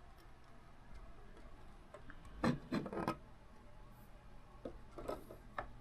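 Plastic building-block model pieces being handled and pressed into place, giving a few sharp clicks and knocks with faint rubbing in between.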